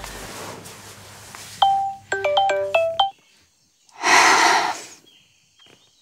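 Mobile phone ringtone, a repeating melody of bell-like notes over a low hum, cutting off abruptly about three seconds in as the call is answered. About a second later comes a short rush of noise.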